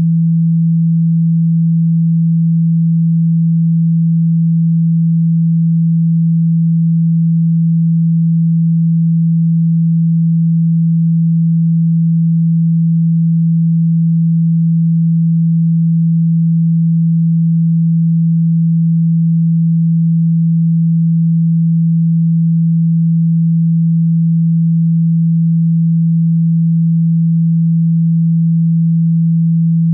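A single loud, steady, low pure tone held without change: a generated speaker-cleaning tone played to vibrate water and dust out of a phone speaker.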